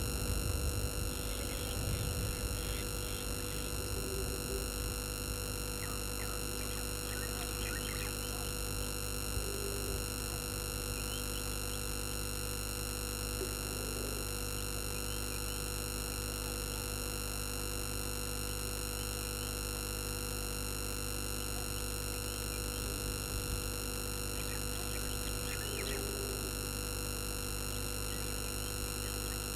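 Steady electrical hum made of many steady tones at once, with a few faint short calls now and then.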